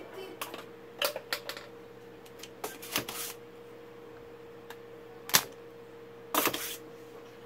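Irregular sharp clicks and taps of a soldering iron working joints on a circuit board, the loudest about five seconds in, with a couple of short crackly bursts, over a faint steady hum.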